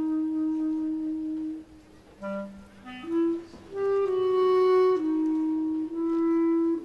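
Background music: a woodwind melody of slow, long held notes, with a quieter stretch about two seconds in.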